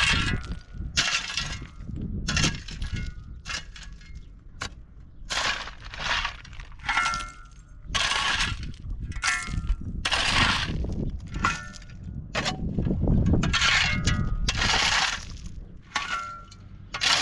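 Broken shards clinking and crunching over and over as they are handled or shovelled, a quick run of sharp knocks, many with a short bright ring.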